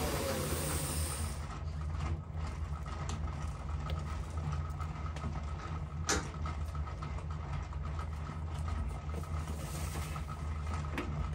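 Small metal lathe spindle winding down with a falling whine that fades within the first half second, then a steady low machine hum with a single sharp click about six seconds in.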